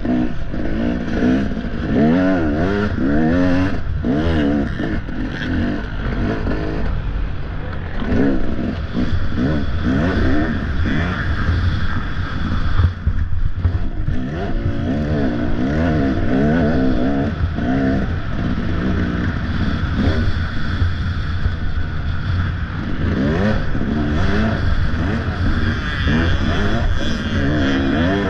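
Off-road dirt bike engine revving up and down over and over as the throttle is worked through the course, over a steady low rumble.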